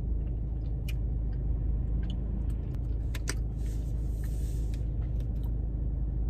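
Steady low rumble of running air conditioning, with a few faint clicks and a brief rustle about halfway through.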